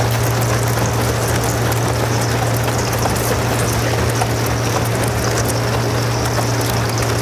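Boat motor running steadily under load while the aluminium hull pushes through thin sheet ice, the ice crackling and clinking continuously as it breaks into plates.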